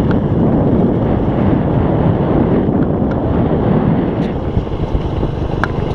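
Wind buffeting the microphone on a moving motorcycle, a steady loud rumble, with motorcycle engine noise beneath it.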